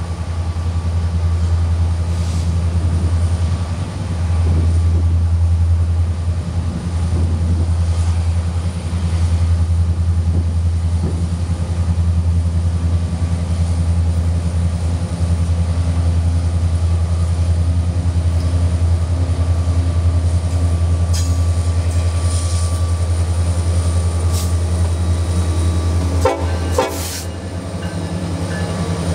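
Diesel-electric freight locomotives led by a Norfolk Southern SD70M running steadily as they pull a train, a constant low engine drone. A short, sharp noise comes near the end.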